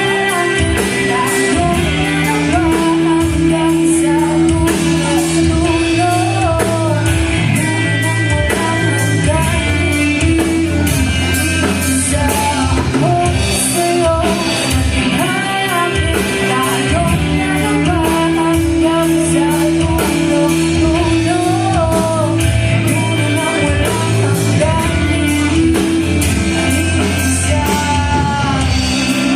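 Live rock band playing a song, with electric guitar, bass and drums; a bending melody line rides over a steady bass line.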